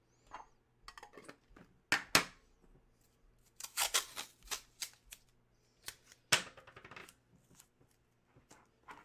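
Hands handling items and packaging: irregular clicks, knocks and short rustles, the sharpest about two seconds and six seconds in.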